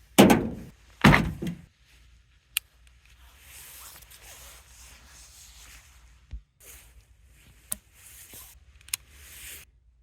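A .22 LR survival rifle being handled: two loud sharp bangs about a second apart near the start, then quieter sliding and rubbing of parts with a few sharp clicks.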